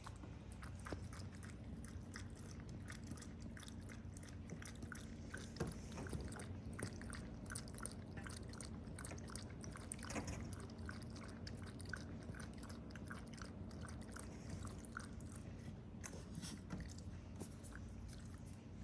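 A bichon frise chewing, with many small irregular clicks and crunches.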